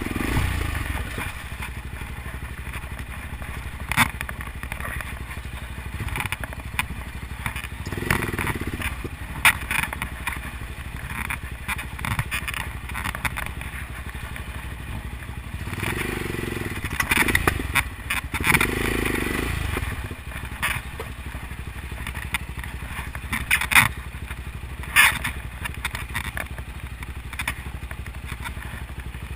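Suzuki DR650 single-cylinder engine running at low speed, with a few louder bursts of throttle about a third and two thirds of the way in. Now and then there are sharp knocks and clatter as the bike moves over loose river stones.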